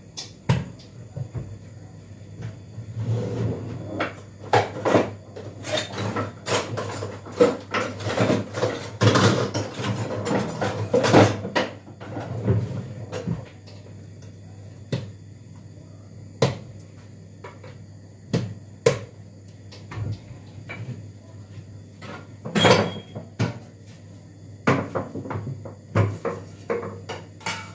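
Knocks, clicks and clatter of kitchen things being handled on a counter as a hand mixer, its metal beaters and a tin box are got out and set down. The clatter is dense for the first dozen seconds, then becomes scattered single knocks, with one louder knock a little past the middle.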